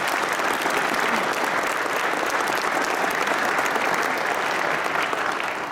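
A large seated audience applauding, many hands clapping in a steady dense patter.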